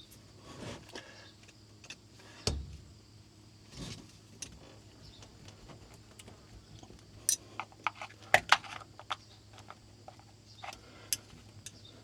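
Hand tools clinking and tapping on a metal battery cable clamp as it is worked loose and pried open: a few dull knocks in the first four seconds, then a quick run of sharp metallic clicks past the middle and a couple more near the end.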